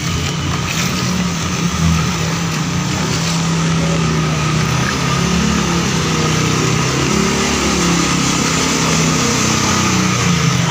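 Motorcycle engine running as it rides through street floodwater, its pitch rising and falling, over a steady hiss of rain and water.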